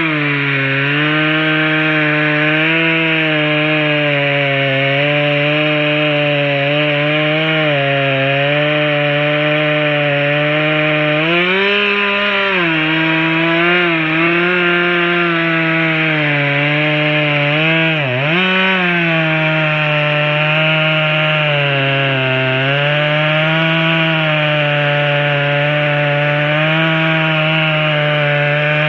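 Two-stroke chainsaw under load, cutting into the trunk of a standing maple. The engine note sags and picks up again as the bar is worked in the wood, with a sharp dip and recovery about two-thirds of the way through.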